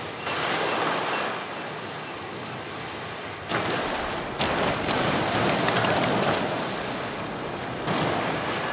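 Ocean surf washing against a rocky shore, a steady rush of breaking waves. From about three and a half seconds in, a few sharp knocks or scrapes sound over the surf.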